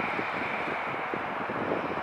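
Jet engines of an Airbus A321 airliner running on the ground: a steady rush with a faint high whine. Wind buffets the microphone throughout.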